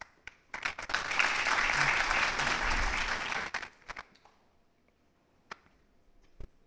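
Audience applauding for about three seconds, then dying away into a few scattered claps.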